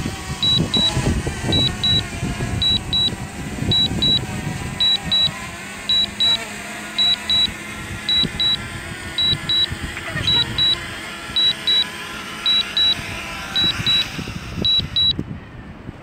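DJI Mavic Mini's landing alert from the DJI Fly controller app: pairs of short high beeps repeating about once a second while the drone descends. The beeps stop near the end as it touches down.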